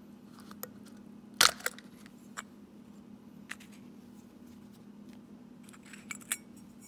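Light clicks and taps of small metal parts being handled as the cap and diaphragm of a VW Autostick control valve are lifted off its housing, the sharpest click about one and a half seconds in. A steady low hum runs underneath.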